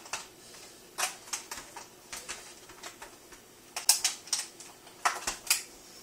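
A screwdriver and screws working against a Bosch dishwasher's plastic control panel: irregular light clicks and taps. The sharpest come in quick clusters about four and five seconds in.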